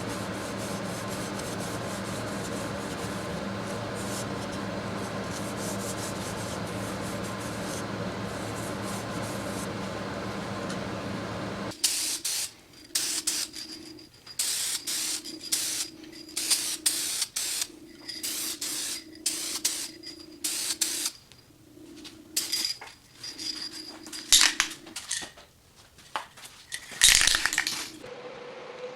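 A steady machine hum for about twelve seconds. Then a run of short, irregular rubbing strokes, each under a second long with pauses between, as from hand work on a small metal part.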